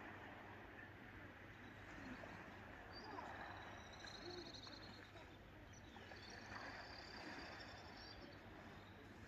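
Faint outdoor ambience of sea and breeze, with a bird calling in short high trills twice, about three seconds in and again near seven seconds.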